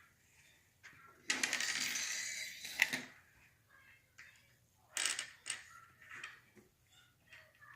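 Loose plastic Lego pieces clattering as they are shifted and rummaged through for about two seconds, followed by a few sharp clicks of pieces being handled.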